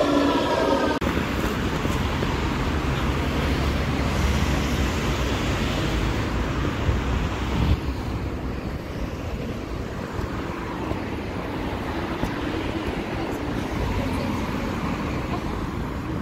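Steady city road traffic, cars driving past, with a heavy low rumble through the first half that eases off about eight seconds in. In the first second, a London Underground train is moving through the station with a whine.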